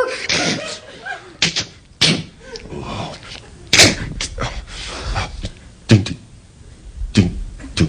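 Vocal sound effects made into a microphone: a string of about six sharp slams and thuds at irregular intervals, some with a short falling sweep.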